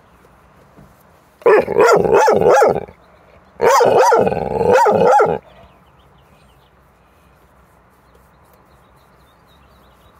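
Pit bull barking in two loud bouts of short, pitched barks, several barks in each, with a pause of about a second between the bouts.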